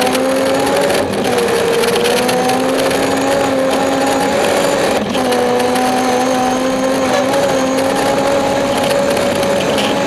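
BMW 325i rally car's straight-six engine pulling hard at high revs, heard from inside the cabin, over steady noise from the tyres on the snowy road. The engine note holds fairly steady, with brief dips in pitch about a second in and about five seconds in.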